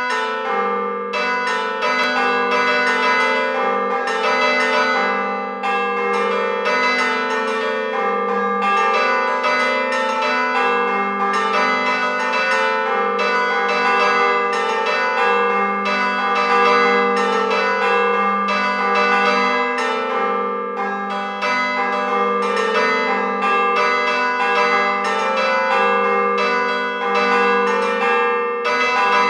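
Church bells rung by hand and rope in a continuous peal, several strokes a second, each ringing on under the next. These are sampled bells from a virtual instrument library, played from a keyboard.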